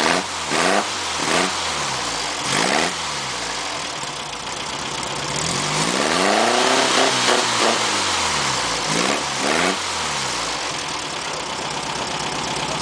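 Engine of the 'Rat80', started after sitting for three months, idling and being revved: three short blips of the throttle, one longer rev that climbs and falls back around the middle, then two more blips.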